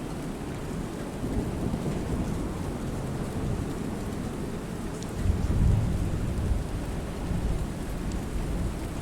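Steady rainfall on a lake with low rumbles of thunder, the strongest rumble swelling about five seconds in.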